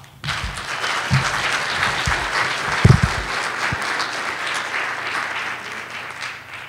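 Audience applauding, starting just after a talk ends and fading out near the end, with a low thump about three seconds in.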